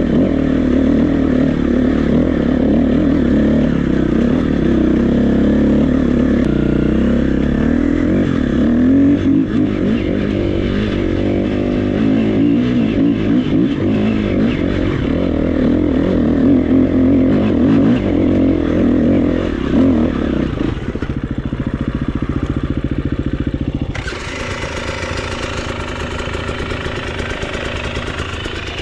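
KTM 350 EXC-F's single-cylinder four-stroke engine running under constantly changing throttle while being ridden. It drops to a quieter, steadier note for the last several seconds.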